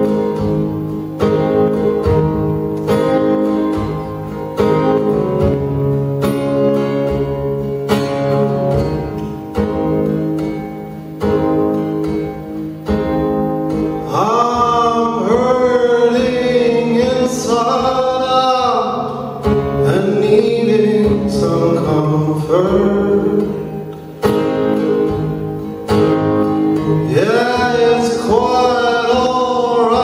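Live acoustic guitar played solo, joined about halfway through by a man's singing voice in several long phrases over the guitar.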